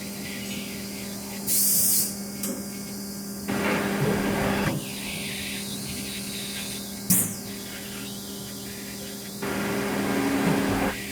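Haas VF-2SS CNC mill's spindle at 12,000 RPM driving a 1-inch two-flute cutter through aluminum, a steady tone. It grows louder and rougher in two stretches of about a second or more each, and there are two short, sharp hissing bursts, about a second and a half in and about seven seconds in.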